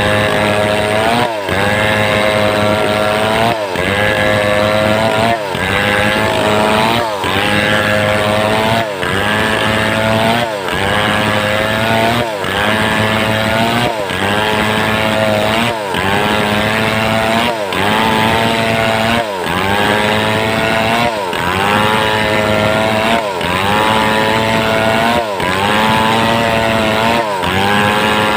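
Homemade two-stroke chainsaw cutting lengthwise through a mindi log. Its engine note drops and climbs back about every two seconds as the cut loads and frees it.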